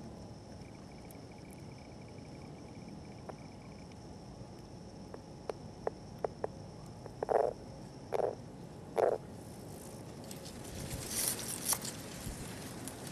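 Northern leopard frogs calling: a few sharp clicks, then three short low croaks about a second apart. A faint steady high insect buzz runs underneath, and a burst of crackly noise comes near the end.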